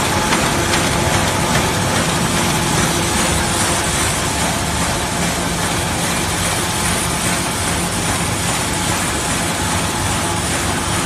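QFD-330 kraft paper bag machine running in production, a loud, steady mechanical running noise with a constant low hum.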